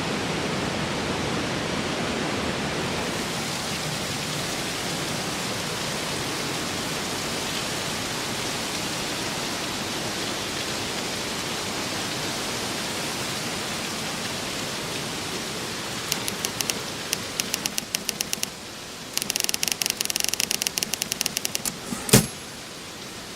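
Waterfall water rushing steadily. In the last third it thins out, and two runs of rapid clicking come through, followed by a single sharp knock about a second before the end.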